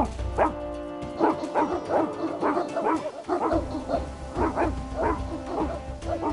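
Several dogs barking over and over, overlapping at about three barks a second, over background music with long held notes.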